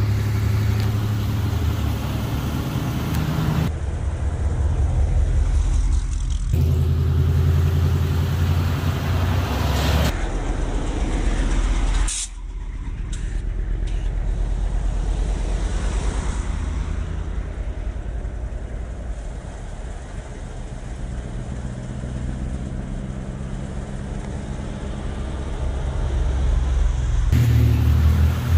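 Lowered Chevy S-10 and GMC S-15 pickups and an S-10 Blazer driving past one after another, their engines and exhausts running at low speed. The sound changes abruptly several times, and it grows louder near the end as a truck comes up close.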